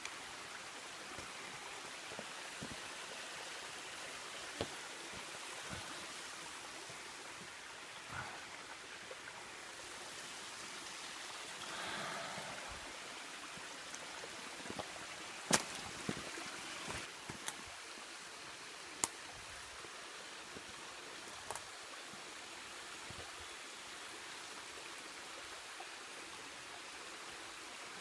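Shallow creek running over rocks, a steady trickling wash of water. A few sharp clicks and soft knocks, most of them in the second half, as feet step on the stones of the creek bed.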